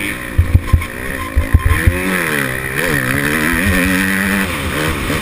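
Motocross bike engine heard from a helmet camera, revving up and down as the rider works the throttle, its pitch rising and falling several times. A few short low thumps come in the first two seconds.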